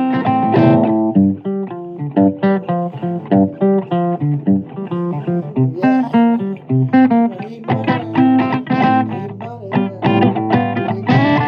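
Guitar playing a blues instrumental passage: a quick line of single picked notes and short runs.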